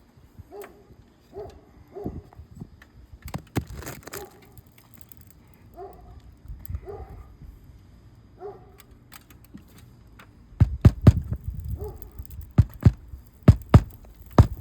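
Hammer driving roofing nails back into asphalt shingles: a run of about ten sharp blows beginning about two-thirds of the way through. Before that, only a few quieter taps and short chirps.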